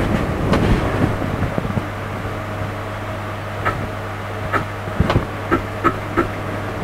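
A CNC-converted Sieg X2 mini mill's axes being jogged in tiny steps from a handheld handwheel pendant: short, irregular ticks over a steady low hum.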